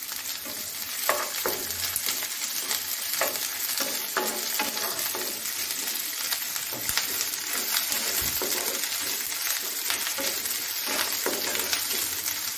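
Sliced onions and ginger-garlic paste sizzling in hot oil in a nonstick frying pan, stirred with a wooden spatula that scrapes and knocks against the pan every second or so.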